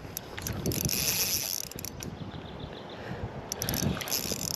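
Shimano Vanford 3000 spinning reel being cranked while a hooked shad is played on light line, its gears whirring with uneven clicking.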